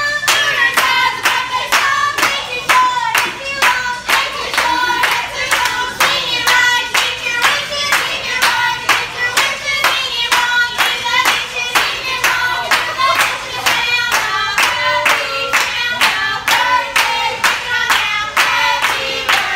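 A group of women clapping in a steady rhythm, a little over two claps a second, while singing a birthday song together.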